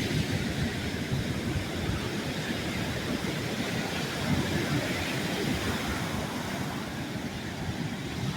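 Ocean surf washing in and out on the shore, with wind buffeting the phone's microphone in a steady rumble.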